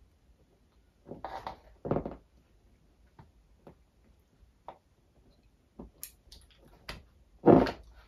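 Hand-handling noises from tying thread knots under a foam cushion: a rustle of fabric, a few light clicks and ticks, and two soft thuds, the louder one near the end.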